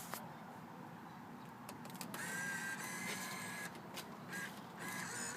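Vending machine bill acceptor motor whirring as it takes in a dollar bill: a steady whine starting about two seconds in, then a few shorter whirs near the end.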